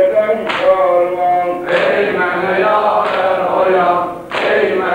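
A man chanting a mərsiyə, a Shia mourning elegy for Imam Hussein, in long wavering sung phrases. A fresh phrase starts about a second and a half in, and another near the end after a short breath.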